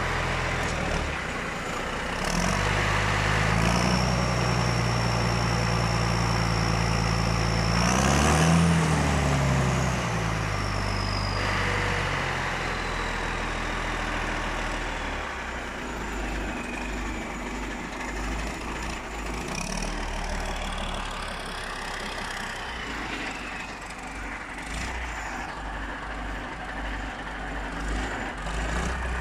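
Motor grader's turbocharged diesel engine revved and held for several seconds with a high turbo whine, then let back to idle about eight seconds in, the whine winding down slowly over several seconds while the engine settles into a steady idle.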